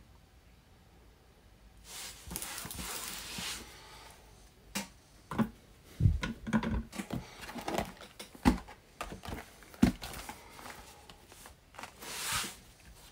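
Handling noise on a desk: a rustling slide, then a run of sharp knocks and thumps, then another brief rustle, as sealed cardboard trading-card boxes and card holders are picked up and set down on a mat.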